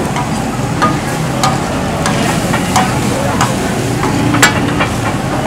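Chicken pieces sizzling and frying on a large flat metal tawa griddle, with a few sharp taps and clicks of utensils on the metal, the loudest about four and a half seconds in.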